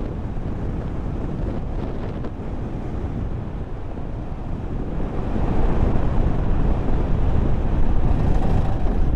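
A vehicle on the move, with wind buffeting the microphone: a steady rumble and roar that grows louder about five seconds in.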